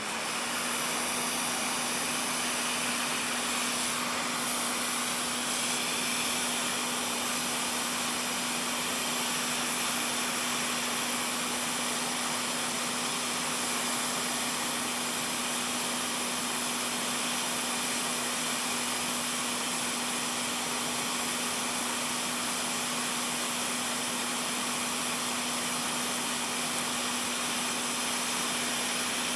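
Hot air rework gun blowing steadily, its fan making an even rush with a steady hum.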